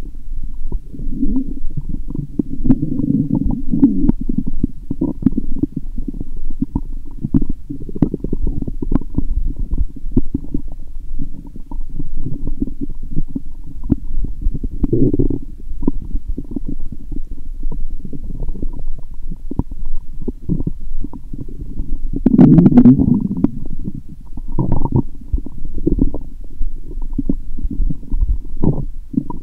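Stomach and intestines gurgling and rumbling, with an almost continuous low bubbling broken by louder surges, the loudest about 22 seconds in. The gut is very active after a lot of lactic-acid probiotic drink.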